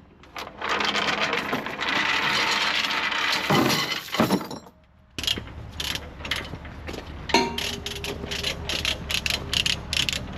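A steady rushing noise fills the first few seconds. After that, quick metallic clinks and rattles of a tie-down chain being worked loose from under a trailer come over a low steady engine hum, growing busier toward the end.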